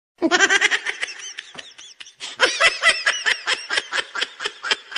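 Laughter, a long run of quick, high-pitched 'ha' sounds at about six a second, pausing briefly about two seconds in.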